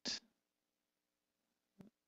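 Near silence: room tone with a faint steady hum. The end of a spoken word is heard at the very start, and a brief faint sound comes near the end.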